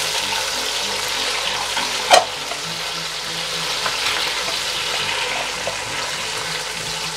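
Diced tomatoes frying in hot oil with green garlic in a nonstick wok: a steady sizzle as a spatula stirs them, with one sharp knock of the spatula against the wok about two seconds in.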